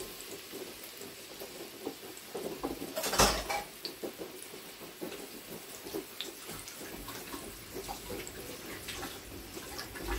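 Sliced red onion starting to fry in hot oil in an electric pot: a steady low sizzle with scattered small pops and crackles, and one louder burst about three seconds in.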